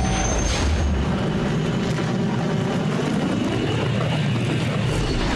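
Sci-fi spaceship engine sound effect: a steady rumble with whooshing passes, its pitch swooping up and back down about four seconds in.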